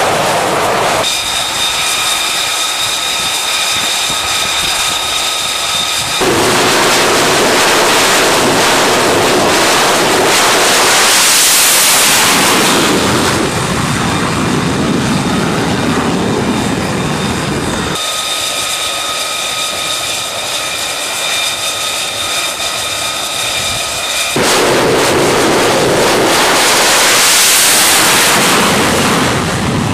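Fighter jet engines on a carrier flight deck, loud throughout. Twice, a steady high-pitched turbine whine is heard for several seconds. Each time it gives way to a louder rushing jet noise that swells up and fades.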